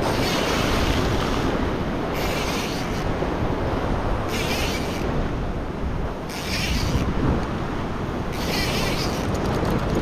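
Ocean swell surging and washing over a rock ledge, with strong wind buffeting the microphone. Short spells of higher hiss come and go every second or two.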